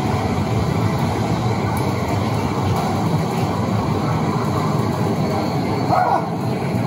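Steady, loud din of a game arcade, the many machines' sounds blending into a dense rumbling noise.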